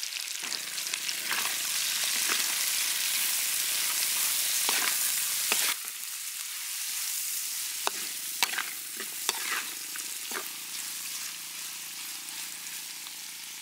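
Onion and whole spices sizzling in hot oil in a metal wok while a metal ladle stirs them, with sharp clinks and scrapes of the ladle against the wok. The sizzle is louder in the first half and drops suddenly near the middle.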